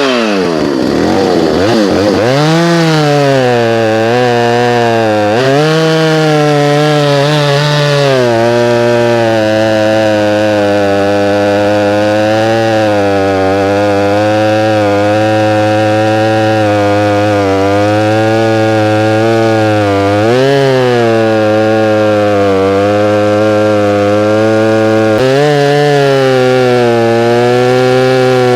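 Stihl MS290 two-stroke chainsaw with a freshly sharpened chisel chain, running loud while cutting wood. Its engine pitch sags sharply under load at the start, climbs back, and dips and recovers a couple more times; in between it holds fairly steady with small wavers.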